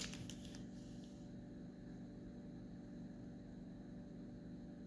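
Quiet room tone with a steady low electrical hum, and one soft knock right at the start.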